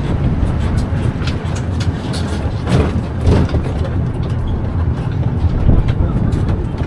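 Tourist road train running along a country road, heard from its open-sided carriage: a steady low rumble of engine and tyres with short rattles and clicks from the carriage.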